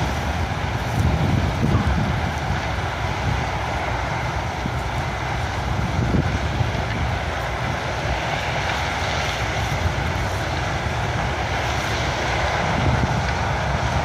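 Combine harvester and grain-cart tractor running steadily while harvesting corn, with gusty wind buffeting the microphone.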